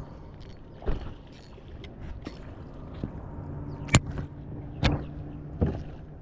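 A boat motor hums steadily under several sharp knocks and thumps from handling rod and fish in the boat, four of them loud and spread across the few seconds.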